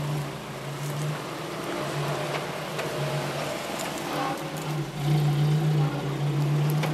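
Suzuki Grand Vitara 4x4's engine running steadily under load as it crawls through a deep muddy rut, getting louder about five seconds in.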